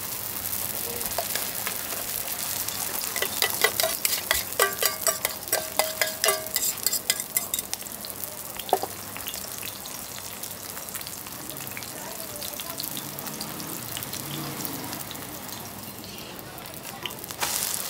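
Roti frying in oil on a flat round griddle, a steady sizzle. From about three to seven seconds in, a fork clatters in quick ringing clinks against metal as the toppings are scooped and spread, with one more clink shortly after.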